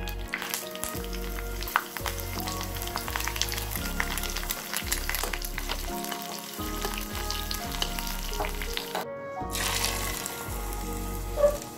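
Hot oil sizzling and crackling as chopped green chillies, curry leaves and mustard seeds fry in a tempering, stirred with a spatula. The sound drops out briefly about nine seconds in, and a single loud knock comes near the end.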